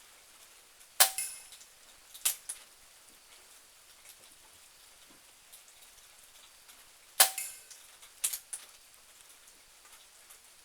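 Two shots from a .22 Benjamin Marauder PCP air pistol, about six seconds apart. Each crack is followed a second or so later by a pair of lighter clicks, the bolt being cycled to load the next pellet. Faint rain hisses in the background.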